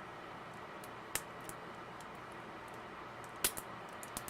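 A few light, sharp clicks and taps from handling a small tin of salve and its packaging, over faint room hiss: one click about a second in, then two close together near the end.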